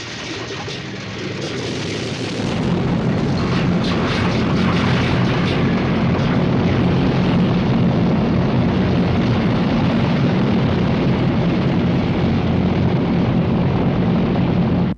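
Film soundtrack of a loud, steady, deep engine-like rumble, as of large aircraft engines running. It swells about two and a half seconds in, holds, and cuts off abruptly at the end.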